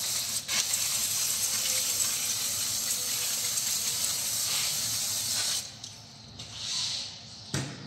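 Aerosol can of brake cleaner spraying in one long steady hiss onto the brake caliper bracket and disc, stopping suddenly about five and a half seconds in. A shorter, fainter spray follows, then a sharp click near the end.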